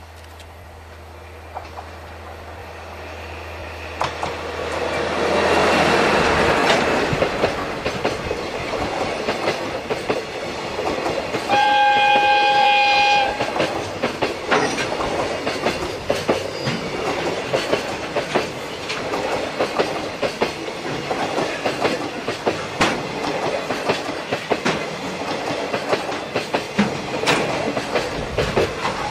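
Diesel-hauled container freight train passing close by: the locomotive's engine drone grows louder as it nears and goes past. About twelve seconds in there is one horn blast lasting about a second and a half. After it the container wagons roll by with a steady rhythmic clickety-clack of wheels over rail joints.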